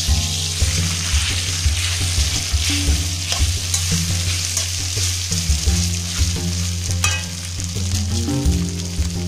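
Steamed rice fingers (fara) frying with spices in a metal pan: a steady sizzle with crackles as they are stirred and turned with a spatula.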